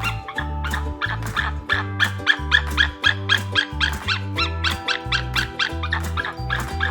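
A bird calling in short, sharp notes repeated rapidly, about four or five a second, over background music with a steady bass line.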